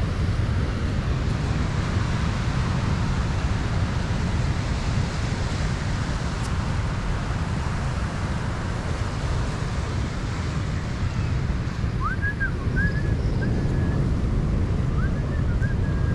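Wind buffeting the microphone over the steady wash of ocean surf on the shore. A few short high chirps come near the end.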